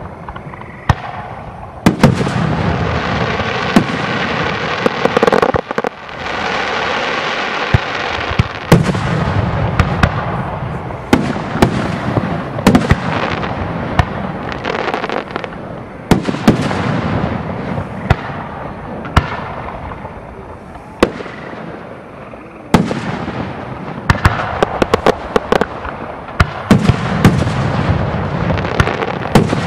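Aerial fireworks display: shells launching and bursting overhead in a steady run of sharp bangs, some in quick clusters, over a continuous crackling hiss from the bursts and their tails.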